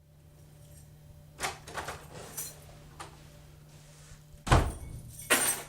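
A door being opened and shut: a few clicks and rattles of the latch, then a loud thump about four and a half seconds in and a short scraping rustle just after.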